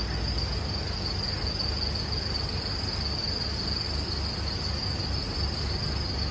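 A steady high-pitched trill over a low, unevenly pulsing hum and a faint hiss.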